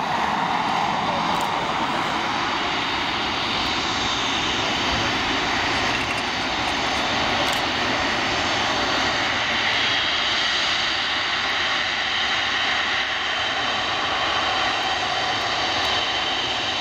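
Jet airliner engines, loud and steady.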